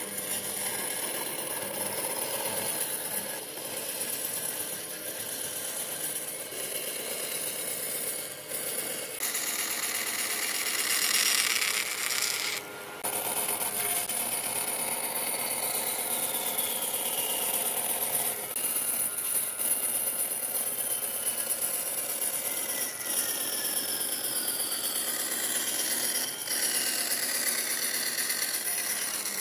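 Band saw running and cutting through a pine board, a steady machine sound with the rasp of the blade in the wood. The cut gets louder and rougher for a few seconds and breaks off briefly about 13 seconds in.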